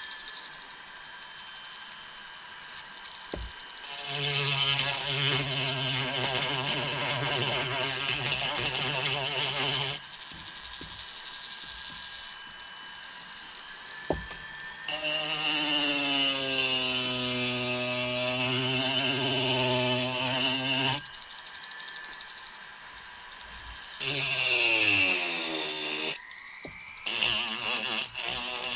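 A rotary power-carving tool grinding wood in three bursts: two of about six seconds and a short one near the end. In the middle burst the motor's pitch dips and recovers as the wood is pressed onto the bit. A quieter hiss carries on between the bursts.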